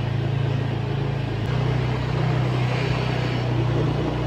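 A motor vehicle engine running steadily, a low pulsing hum that shifts slightly in pitch after a click about one and a half seconds in.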